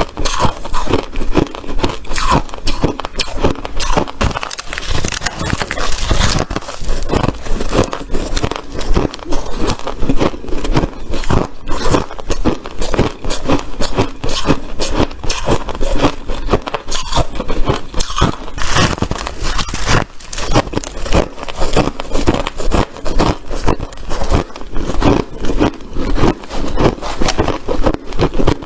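Close-miked crunching of white, crunchy ice: a dense, continuous run of sharp crackling crunches, with only brief let-ups.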